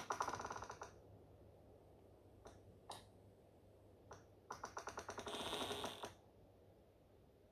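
Conifer trunks creaking in the wind: a rasping creak made of rapid clicks at the start, a few single ticks, then a second, longer creak about four and a half seconds in. A low steady wind rumble runs underneath.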